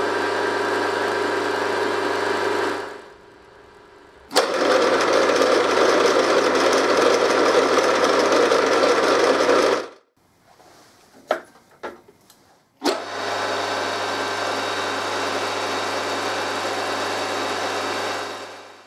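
Geared head of an RF45-style milling machine running in three stretches, the middle one louder, each stopping, with a few sharp clicks in the gaps between. Its six-speed gearbox, freshly reworked and refilled with gear oil, runs quiet and smooth.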